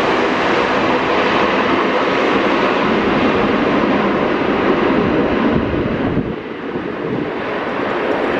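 Jet airliner engines running loud as an aircraft passes on landing or take-off, mixed with wind buffeting the microphone; the noise eases off about six seconds in.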